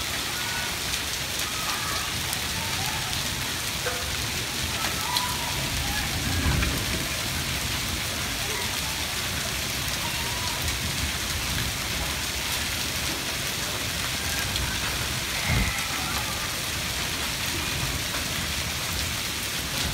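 Hail and heavy rain falling, a steady dense patter on pavement, grass and a brick ledge. Two brief low thumps stand out, about six and fifteen seconds in.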